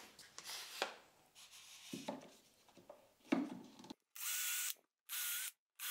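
Clamps knocking and rubbing as they are set on the plywood, then a Bosch cordless drill with a countersink bit runs twice for about half a second each, about four seconds in, drilling pilot holes into Baltic birch plywood.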